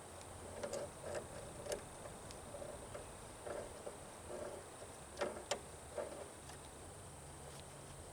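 Faint, scattered clicks and knocks of hand tools and parts being handled during hydraulic cylinder repair work, with the two sharpest knocks a little after five seconds in.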